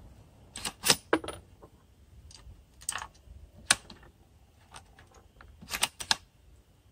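Sharp metallic clicks and clacks of a Savage .243 Win bolt-action rifle's bolt being worked between shots of a ladder test, in several quick groups: about a second in, around three seconds, and a quick pair near the end. The echo of the shot just fired is still fading at the start.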